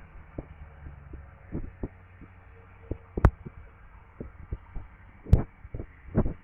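Footsteps of someone walking on a garden path: irregular dull thuds, with two sharp clicks standing out about three and five seconds in.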